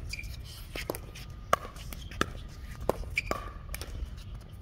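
Pickleball paddles striking a hollow plastic ball in a fast exchange at the net: a string of sharp pops, one roughly every half to two-thirds of a second.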